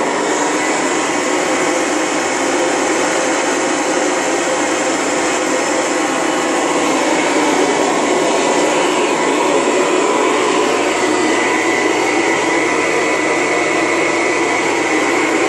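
A 1978 Kirby Classic III upright vacuum cleaner, fitted with a Lexan fan and a four-row brush roll, running steadily on a rug. It gives a loud, even rush of motor and fan noise with a few steady high whining tones.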